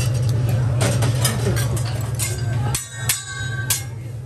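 A teppanyaki chef's metal utensils clink and tap at a steel hibachi griddle, several sharp clinks over a steady low hum.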